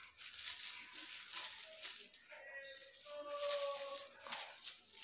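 Crackling, rustling sounds of a plastic-gloved hand and comb working henna paste through hair close to the microphone. A faint pitched sound is held for about a second in the second half.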